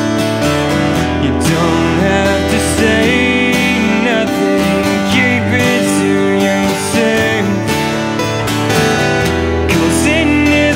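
Acoustic guitars playing a country song together: strummed chords with a moving melody line on top.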